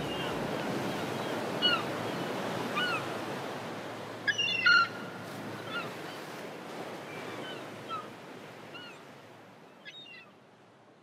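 Surf washing steadily, with short bird calls scattered over it and a louder flurry of calls about four seconds in; the whole ambience fades out gradually toward the end.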